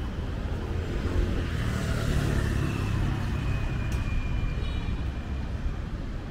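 City street traffic, a steady low rumble of engines and tyres, with a vehicle passing about two seconds in. A thin high-pitched tone sounds from about two and a half to five seconds in, with a short click near four seconds.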